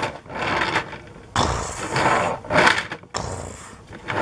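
Plastic toy trucks, a wheel loader and a cement mixer, pushed across a hard tabletop: their plastic wheels roll and scrape with light clacks, in several short bursts.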